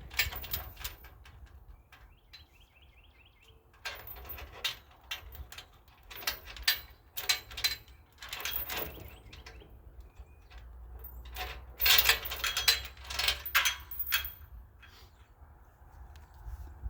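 Bursts of scuffing and rustling noise in three groups, with a bird chirping a quick run of notes about two seconds in, over a steady low wind rumble.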